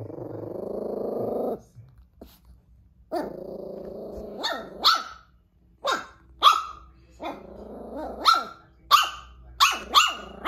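Silver toy poodle puppy growling in long low stretches and letting out short, sharp, high-pitched yaps, often in pairs: the fearful growling and barking of a puppy frightened by a stuffed lion toy.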